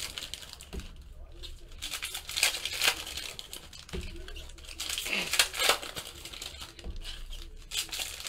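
Trading-card pack wrappers crinkling and tearing as packs are ripped open by hand, in irregular bursts of rustling, with cards handled and set down on a stack.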